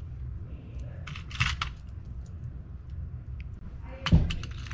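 Small metal hose clamps clinking and rattling while a hose clamp kit is handled: sharp clicks about a second in, then a thump and more clinks near the end, over a faint low hum.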